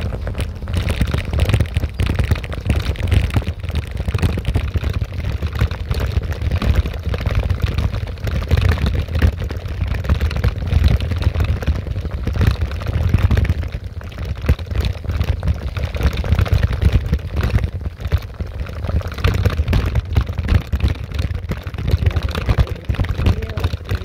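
Wind buffeting the microphone of a moving bicycle, heard as a steady low rumble with crackle over it.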